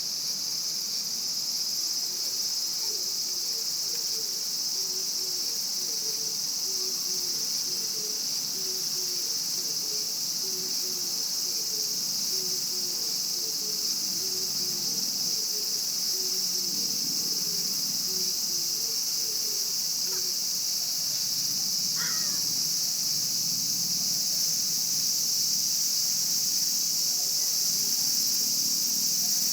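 Japanese cicadas droning in a steady, high-pitched chorus.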